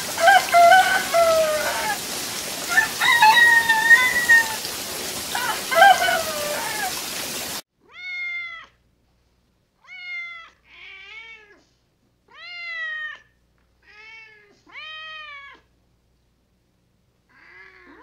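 Animal calls: first several calls over a steady rain-like hiss, then, after an abrupt cut to silence a little before halfway, about seven separate clear calls, each rising and then falling in pitch.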